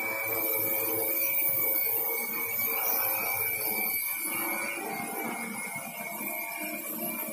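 Multirotor drone's electric motors and propellers buzzing steadily in flight, a whine of several steady tones.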